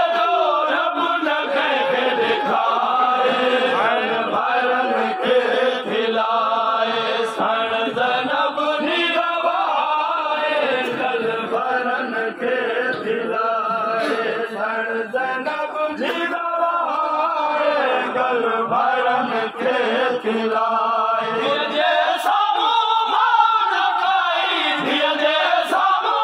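A group of men chanting a mourning lament (noha) together, many loud overlapping voices carrying on without a break.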